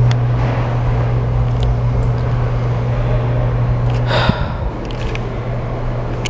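Electric hand dryer running with a steady motor hum and rushing air, cutting off suddenly about four seconds in. A person gives a brief breathy gasp just as it stops.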